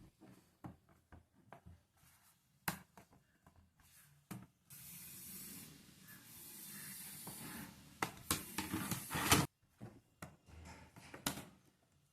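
Hands handling a laptop during a RAM upgrade: scattered small clicks and taps, then a few seconds of steady hissing, rubbing noise with a cluster of clicks near its end, cutting off suddenly.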